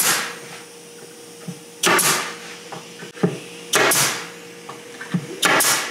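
Pneumatic nail gun firing 30 mm nails into plywood: a sharp shot with a brief hiss of air, about every two seconds, the last two in quick succession.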